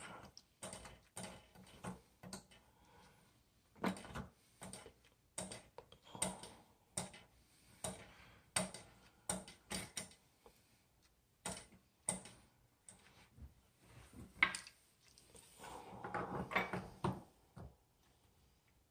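Metal tool clicking and knocking on faucet hardware as a new faucet stem is fitted and tightened down. The clicks come in an irregular run, roughly one every second through the middle.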